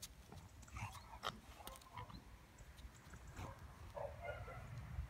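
Two chow chows, an adult and a puppy, play-fighting: short, faint dog vocal sounds in scattered bursts, busiest about a second in and again in the second half.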